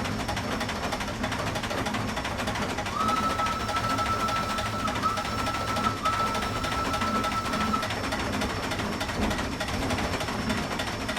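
Steam crane in constant operation: a dense, steady mechanical clatter and hiss with a low throb. A thin, high steady tone comes in about three seconds in, breaks briefly twice, and stops near eight seconds.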